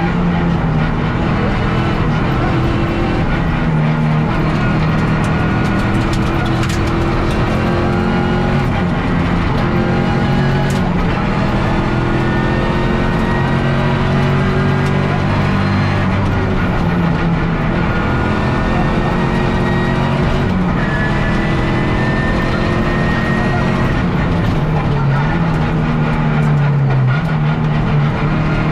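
Peugeot 207 R3 rally car engine heard from inside the cabin, driven hard on a rally stage. Its pitch repeatedly climbs as the revs build and then drops at each gear change.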